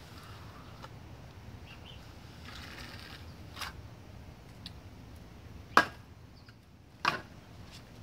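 Hand trowel smoothing a small pour of wet cement, with a short scrape about two and a half seconds in and a few light clicks. Two sharp knocks, the first the loudest, come a little past halfway and again about a second later, as the tool meets the hard tiles around the slab.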